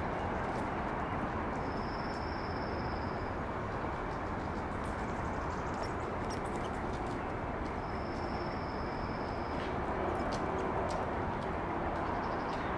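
Steady outdoor background noise, with two high, thin, steady tones, each about a second and a half long, one about two seconds in and one about eight seconds in, and a few faint light clicks.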